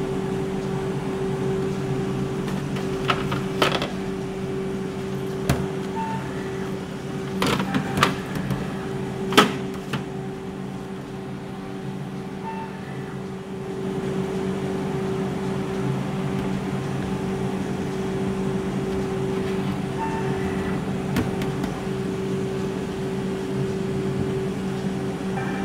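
BKN-S82 soft-serve ice cream machine, with its twin compressors and motors, running with a steady hum while it dispenses continuously. A few sharp clicks and knocks sound between about three and ten seconds in, the loudest near the tenth second.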